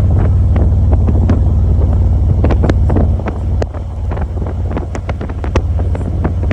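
Motorcycle running at road speed under heavy wind noise on the microphone, with many short sharp ticks of raindrops striking it.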